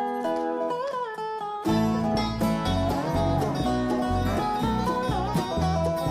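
Live bluegrass band playing an instrumental intro, led by a resonator guitar (Dobro) played with a slide bar, its notes gliding in pitch. About a second and a half in, the rest of the band comes in with bass underneath.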